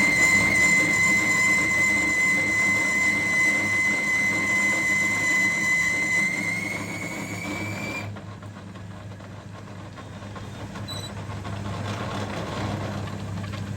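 A workshop machine running with a steady high whine, which rises a little and then cuts off about eight seconds in, over a steady low hum.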